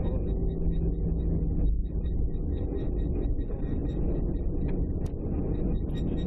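Cabin noise of a jet airliner rolling out on the runway just after landing: a steady low rumble of engines, airflow and wheels, with a faint steady hum that fades about two seconds in.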